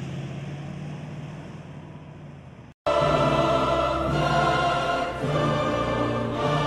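A steady low hum with a hiss, slowly fading, breaks off about three seconds in. Loud dramatic music with a choir singing in an operatic style then comes in.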